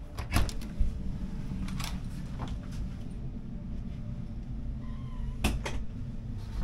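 Cabin door being opened and handled: sharp latch clicks and knocks, several in the first three seconds and a close double click near the end, with a brief faint squeak just before it, over a steady low hum.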